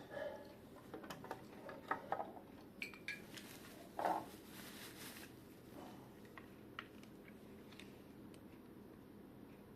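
Faint handling sounds from unboxing a dehumidifier: scattered light clicks and knocks of plastic parts and packaging, with a brief rustle about four seconds in, over a steady low hum.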